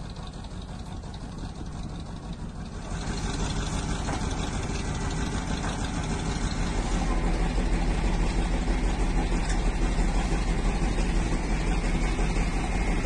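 A vehicle engine idling steadily, with a low hum and a noisy outdoor wash over it that grows louder and fuller about three seconds in.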